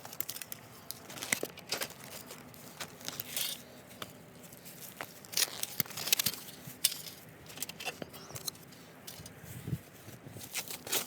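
Rubbish in a dumpster rustling and crinkling in irregular bursts as it is shifted about.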